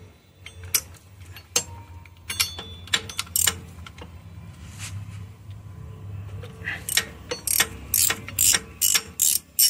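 Ratchet wrench with a 21 mm socket clicking as it loosens the clutch hub nut on a mototaxi engine. The clicks are scattered at first, then come in a quick regular run of about three a second near the end.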